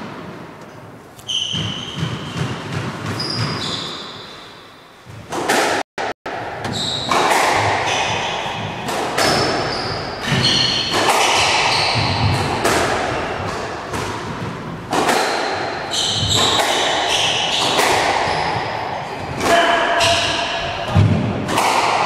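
Squash rally: the ball cracks off the rackets and smacks the front wall again and again, echoing in the court, with sneakers squeaking short and high on the wooden floor between shots.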